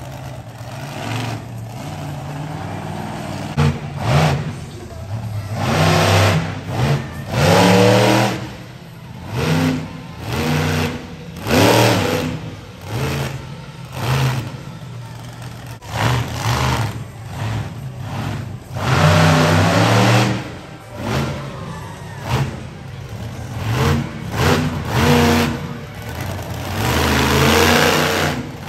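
Monster truck engine revving hard in repeated bursts, its pitch climbing and dropping with each blip of the throttle.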